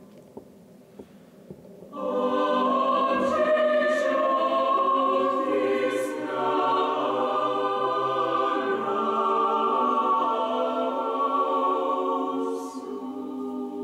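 Mixed choir singing a hymn a cappella in sustained chords, coming in together about two seconds in after a short quiet stretch with a few small clicks, and a little softer near the end.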